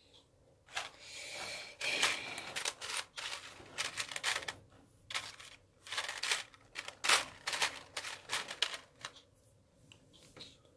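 Small plastic beads clicking and rattling as a hand rummages through a plastic storage drawer, a run of quick irregular clatters that stops near the end.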